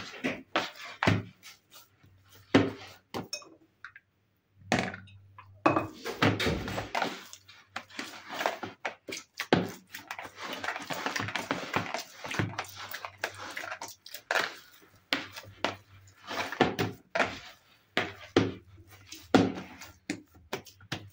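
Hands kneading a soft yeast dough, with a little oil worked in, in a plastic basin: irregular squishes and thuds as the dough is pressed and folded. There is a brief pause about four seconds in.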